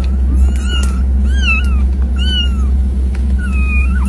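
A litter of kittens mewing, several high-pitched meows overlapping and following one another about every half second, over a steady low hum.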